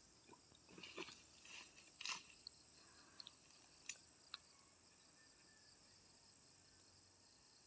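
Near silence: faint steady high-pitched insect chirring, with a few soft rustles and clicks of footsteps in grass in the first half.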